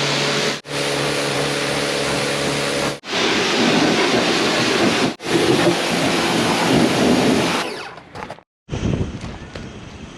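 Pressure washer blasting a high-pressure water spray onto equipment: a loud hiss over a steady hum, broken by abrupt cuts every two or three seconds. Near the end it drops out briefly and returns quieter, with a few small clicks.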